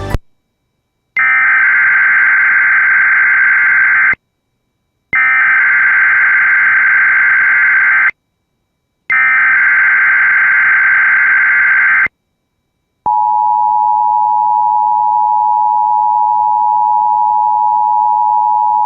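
Emergency Alert System broadcast: three identical bursts of SAME header data tones, each about three seconds long with a second's pause between them, then the steady two-tone EAS attention signal starting about two-thirds of the way through. This is the start of an alert, ahead of the spoken National Weather Service message.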